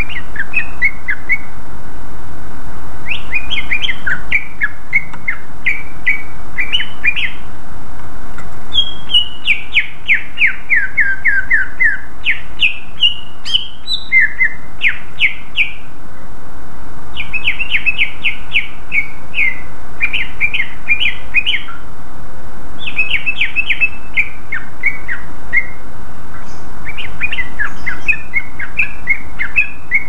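Male green leafbird (cucak ijo) in full song: loud, rapid phrases of chirps and quick descending note runs, one after another with short gaps. This is the 'gacor' song used as a lure to set other leafbirds singing.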